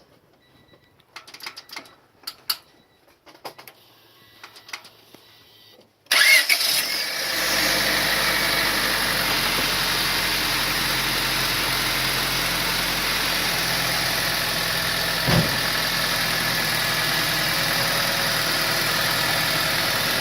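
A few clicks, then about six seconds in the 1994 Honda Civic's four-cylinder engine cranks, catches and settles into a steady idle. This is its first start on fresh oil after an oil change, run to check for leaks, and it sounds good. One brief thump comes near the end.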